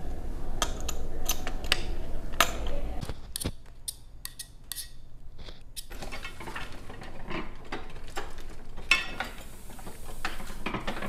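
Sharp metallic clicks as a hand tool works on a forme of metal type locked in a chase, then a cast-iron platen job press running, its gears and rollers clattering, with one sharp clack near the end.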